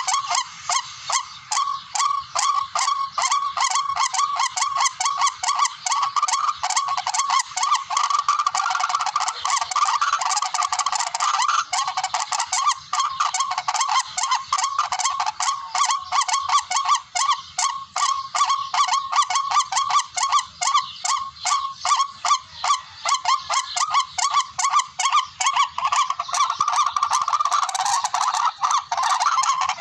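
Recorded call of a rail (tikling), played as a lure for bird hunting: a continuous loud series of rapid repeated notes, several a second, with no pause.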